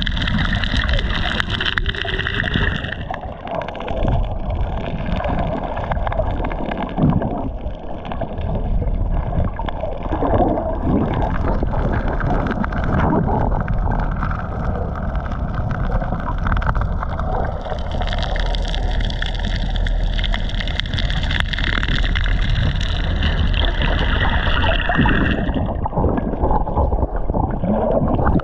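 Sea water sloshing and gurgling with a steady low rumble.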